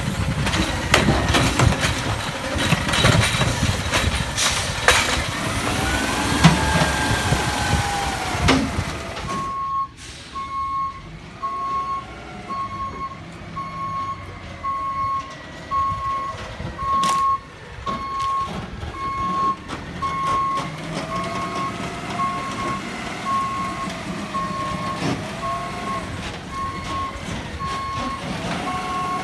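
Garbage truck working: loud clanking and knocking with a wavering whine for about the first nine seconds, then its reversing alarm beeping steadily about once a second over the running engine.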